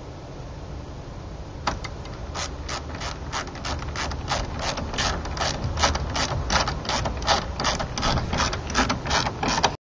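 Ratcheting hand screwdriver clicking steadily, about three to four clicks a second, as it turns a screw through a deadbolt latch faceplate into the wooden edge of a gate. The clicking starts about two seconds in.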